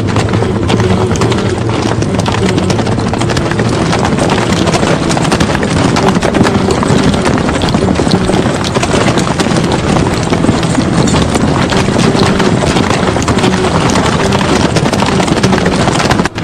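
Battle sound effect of many horses galloping together: a dense, steady clatter of hooves that breaks off briefly just before the end.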